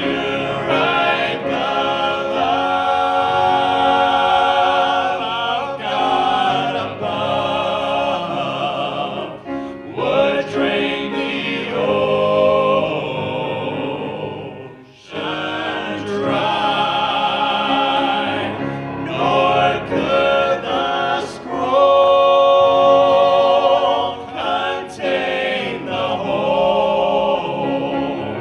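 A vocal group singing a hymn in harmony, with a brief breath between phrases about halfway through.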